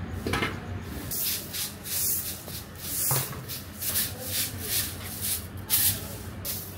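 A broom sweeping the pavement in quick, repeated scratchy strokes, starting about a second in.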